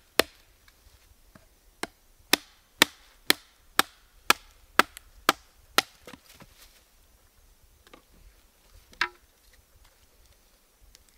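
Wood being chopped: about ten sharp strikes at a steady two a second, then a few lighter knocks and one last strike about nine seconds in.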